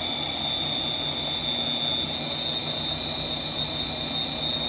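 Small bullet-style food processor running steadily with an even, high whine while it grinds a thick walnut and garlic dip.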